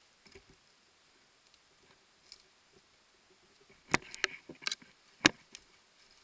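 A handful of sharp, irregular clicks and snaps, clustered from about four seconds in, with the loudest a little after five seconds, over faint rustling.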